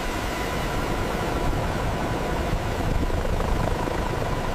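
Heavy-lift helicopter's turbine engines and rotors running, a steady loud rushing noise with a faint steady whine through it.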